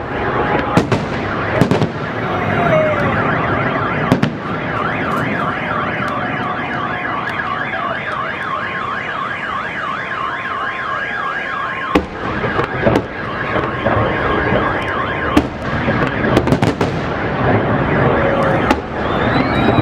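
Fireworks salute bangs going off every few seconds over a steady rumble of distant explosions. From about five seconds in, several car alarms wail together with fast up-and-down warbling tones, dropping out about fifteen seconds in, most likely set off by the fireworks.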